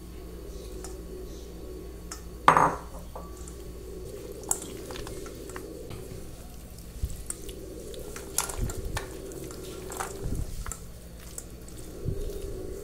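Kitchen utensils clinking and knocking against dishes, with one sharp knock about two and a half seconds in and a run of lighter clinks later on.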